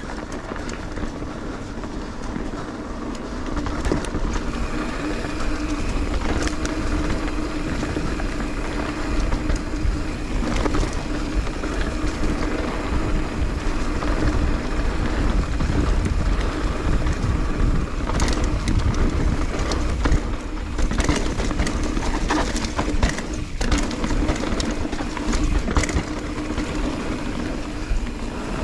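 Mountain bike rolling fast down a dirt singletrack: tyres running over dirt, leaves and roots, with the chain and frame rattling and scattered sharp clacks, under wind buffeting the camera microphone. It gets louder from about four seconds in.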